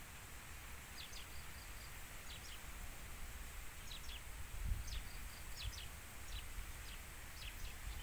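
Wind gusting on the microphone as a low rumble, strongest about five seconds in, with a small bird giving many short, high chirps.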